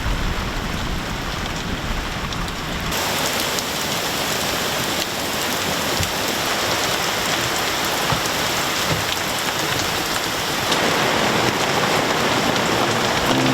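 Rain falling steadily as an even hiss, which steps up abruptly about three seconds in and grows fuller again near the end.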